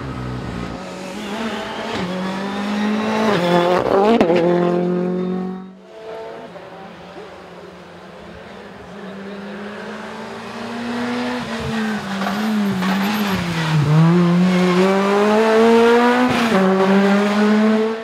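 Two Ford Fiesta rally car engines passing one after the other, revving hard with the pitch climbing and dropping sharply several times at lifts and gear changes. The first is loudest about four seconds in and is cut off about six seconds in. The second builds up and is loudest near the end.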